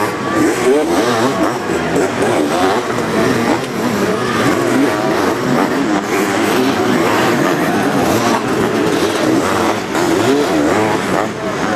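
Sidecar motocross outfits' engines revving hard as several machines race over a dirt track, the pitch repeatedly rising and falling as riders open and close the throttle through corners and climbs.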